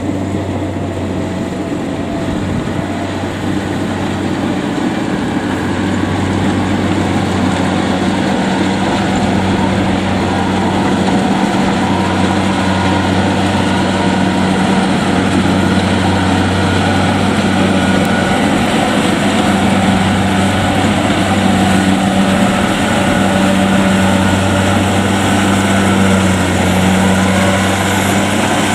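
Kubota DC70 rice combine harvester's diesel engine running steadily under load while harvesting, a constant low hum that grows a little louder over the first few seconds.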